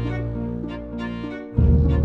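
Background music on bowed strings, with sustained notes over a bass line. About a second and a half in it dips briefly, then a louder passage with deep bass notes comes in suddenly.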